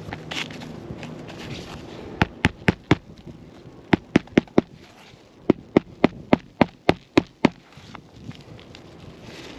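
Hand hammer driving roofing nails to refasten an asphalt 3-tab shingle: three runs of quick, sharp strikes, about four, then four, then nine, with short pauses between.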